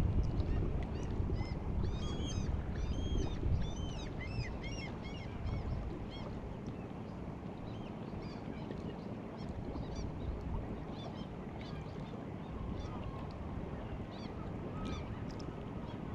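Many short, arching bird calls, thick in the first few seconds and again near the end, over the steady wash of sea water at high tide.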